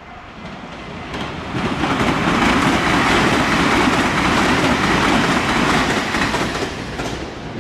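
A train passing close by at speed, swelling to full loudness about two seconds in and fading near the end, its wheels clattering over the rail joints.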